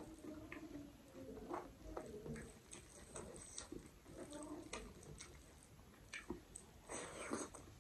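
Fingers mixing and squeezing rice with spinach dal on a tray: soft, faint wet squelches and small clicks, with a louder wet burst about seven seconds in.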